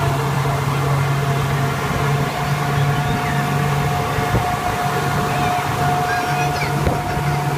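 Speedboat's outboard motor running steadily at speed, a constant low hum, with water rushing past the hull.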